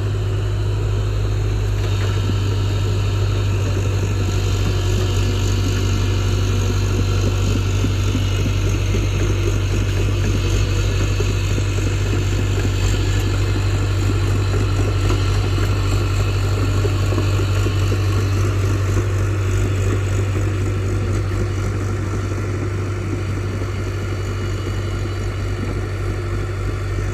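JCB NXT 205 excavator's diesel engine running steadily with a deep, even hum.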